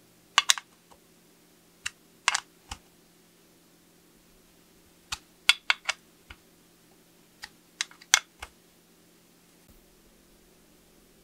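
Sharp clicks and light taps in small clusters of two or three, over a steady low hum.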